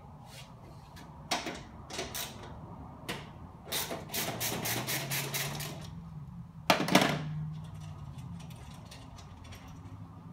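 Hand tools clicking and clinking on steel as nuts are taken off a bearing's bolts: scattered metal clicks, a quick run of ratchet clicks at about six a second around the middle, and a sharper metal clatter about seven seconds in.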